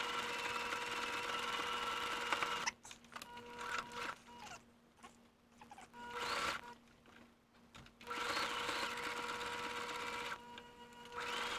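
Electric sewing machine running steadily as it zigzag-stitches wide elastic onto stretch knit fabric. It stops about three seconds in and starts again about eight seconds in.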